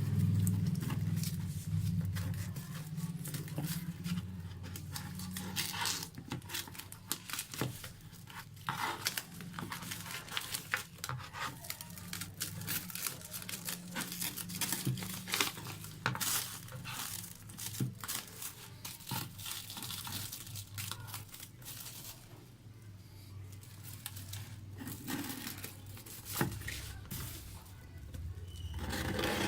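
The packaging of a phone's retail box being torn open and crinkled by hand: irregular tearing and crackling throughout, over a low steady hum.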